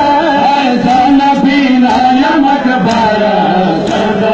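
Men's voices chanting a Shia mourning chant (noha) in a melodic, continuous line. Faint slaps of matam chest-beating come roughly once a second.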